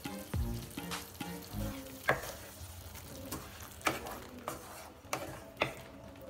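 A spatula stirring thick egg roast masala gravy with boiled eggs in a non-stick frying pan: irregular scrapes and taps against the pan with a light sizzle underneath. The gravy has thickened and its oil is starting to separate.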